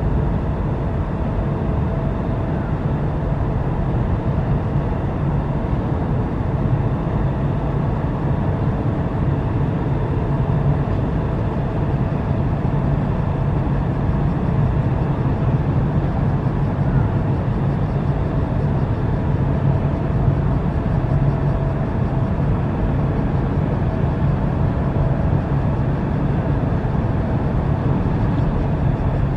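Steady low drone of a large passenger ferry's engines and machinery, a constant hum with a fainter higher tone above it that stays even throughout.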